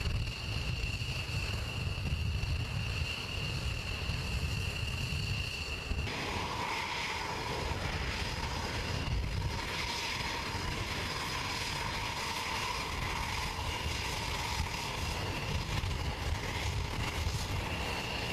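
Fighter jet engines whining steadily at taxi power. First an F-22 Raptor's steady high whine with low rumble, then after an abrupt change about six seconds in, a Eurofighter Typhoon's lower whine over a rushing hiss.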